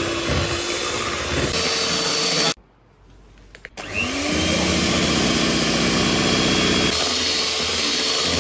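Electric hand mixer running with its beaters in a stainless steel bowl, beating eggs and then cake batter as the dry ingredients go in. It cuts off about two and a half seconds in, then starts again about a second later with a rising whine as the motor spins up, and runs steadily after that.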